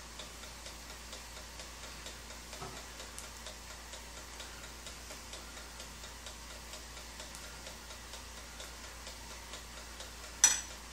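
Faint, steady mechanical ticking, with a metal spoon clinking once against a glass jar near the end.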